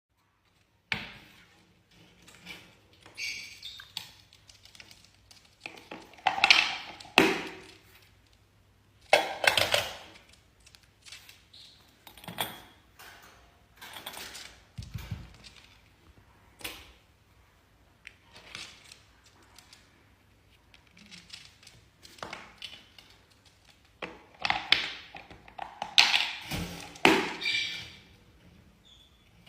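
A pet parrot making irregular taps and knocks, with short scattered chirps; the sounds come in clusters, loudest near the middle and toward the end.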